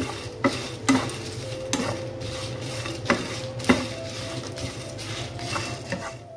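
A spatula stirring and scraping whole spices and dried Kashmiri chillies around a nonstick frying pan as they roast, with about eight sharp, irregularly spaced knocks of the spatula against the pan.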